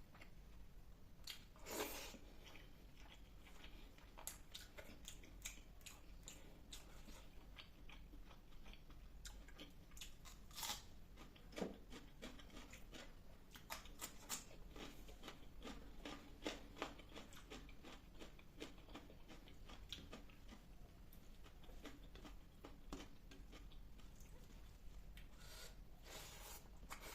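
A person eating up close, chewing and crunching mouthfuls of fish curry, rice and salad. It is a run of irregular mouth clicks and smacks, with a few louder crunches.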